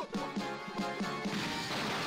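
Trailer music: a bouncy repeated figure of short pitched notes, with a dense hissing wash of sound coming in about one and a half seconds in.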